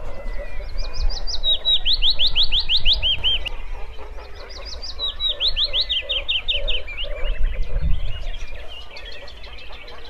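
Wood warbler singing: two song phrases about four seconds apart, each a quick run of high notes that speeds up and slides down in pitch into a trill. Fainter chirps from other birds sound in the gaps, over a low rumble.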